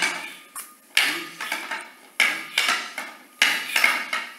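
Kobudo training weapons, a sai and a wooden stick, striking each other in a partner drill: about seven sharp clacks and clinks at an irregular pace, each with a short ring.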